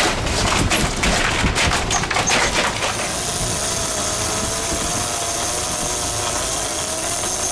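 Rapid, irregular knocking and thumping as a freshly landed mahi-mahi is wrestled into an ice-filled cooler. About three seconds in this gives way to a steady rush of wind and sea from a catamaran under way, with a faint wavering hum.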